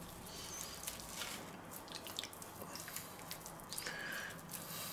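Faint wet squishing of hands rubbing mustard over a raw pork neck, with light crinkling of the cling film underneath as the meat is lifted near the end.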